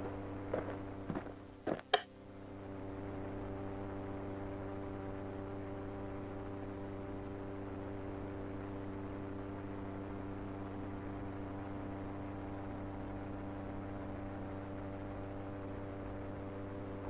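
A few short clicks in the first two seconds, then a steady low electrical hum with several even overtones that runs on unchanged.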